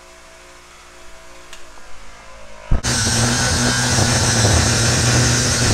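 A bench grinder hums quietly and steadily. About two and a half seconds in it gives way abruptly to a loud, steady angle grinder grinding a rusty steel plate, with a deep hum under a bright hiss.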